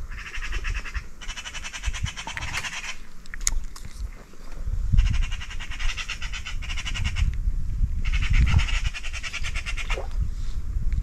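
Spinning reel being cranked in bursts of one to two seconds with short pauses between, a fast buzzy ticking of the reel's gears.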